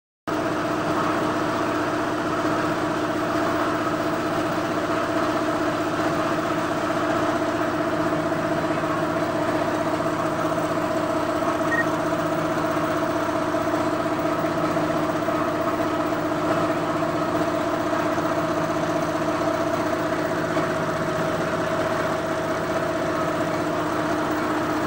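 Material-handling plant machinery running: a steady, unchanging hum with two constant tones.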